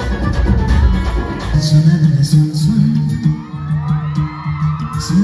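Loud dance music from a stage sound system, heard from the audience, with singing. About a second and a half in the track changes: the heavy bass drops away and a steady low bass line with regular high ticks takes over.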